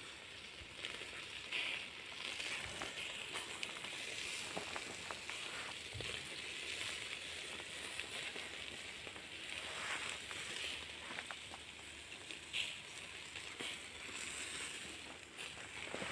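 Shashlik meat sizzling in hinged wire grill baskets over glowing charcoal: a steady hiss with scattered small crackles and pops.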